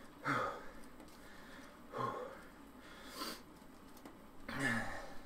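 A man breathing hard from the effort of pedalling an exercise bike: three short voiced exhalations, the first just after the start and the last near the end, with a quick sharp breath through the nose a little after three seconds in.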